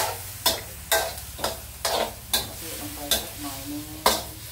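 Metal spatula scraping and knocking against a steel wok about twice a second, stir-frying chicken and herbs. A frying sizzle runs underneath from the coconut milk just added to the hot pan.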